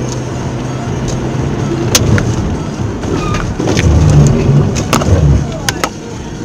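Car driving on a wet road, heard from inside the cabin: a steady engine and road hum, with several sharp clicks and a louder low rumble from about four to five and a half seconds in.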